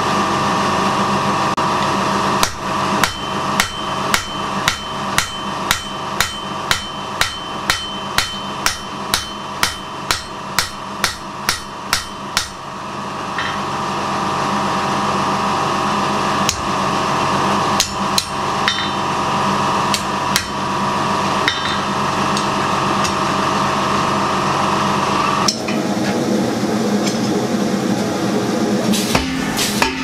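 Hammer blows on red-hot steel over an anvil and hardy, about two a second for some ten seconds, each with a short metallic ring, then slower scattered blows. A steady hum runs underneath and stops a few seconds before the end, followed by a quick run of blows.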